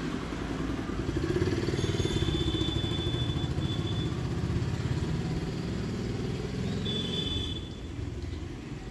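A motor vehicle engine running with a low, fast pulsing rumble, growing louder about a second in and easing near the end. A thin high tone sounds twice over it.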